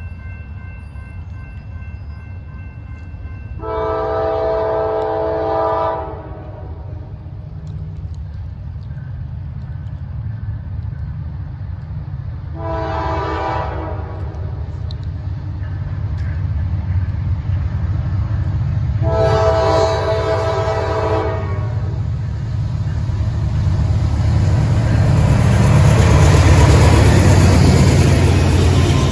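Norfolk Southern freight locomotive blowing its multi-tone air horn three times as it approaches: a long blast, a short one, then another long one. Its diesel engine rumble grows steadily louder and is loudest as the locomotive passes close by near the end.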